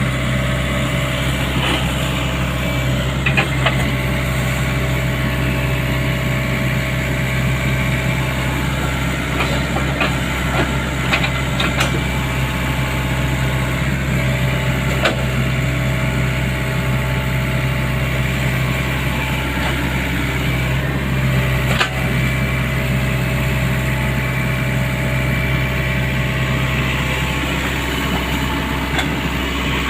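Sany excavator's diesel engine running at a steady speed, with a few short knocks along the way.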